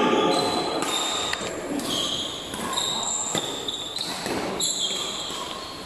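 Badminton rally: court shoes squeaking in short high-pitched chirps on the hall floor as the players move, with sharp racquet hits on the shuttlecock.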